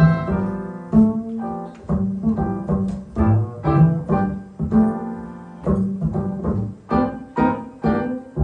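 Upright double bass soloing pizzicato in a jazz blues, a run of plucked notes in uneven phrases with some strongly accented notes, with piano chords comping behind it.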